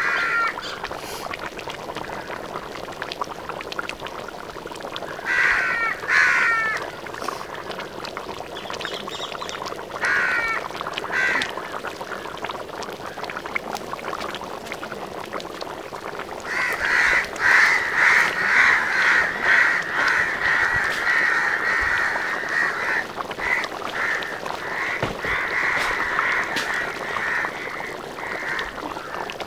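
Birds calling in short clusters of quick calls, then a long run of rapid, dense calling from a little past halfway until near the end. Underneath is a steady soft hiss from a large iron pan of curry bubbling over the fire.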